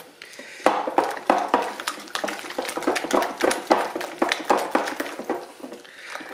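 Wire whisk beating cold, set custard in a glass bowl: rapid, irregular clinks and taps of the whisk against the glass, starting just under a second in. The custard has gone gelatinous on cooling and is being broken up to make it smooth.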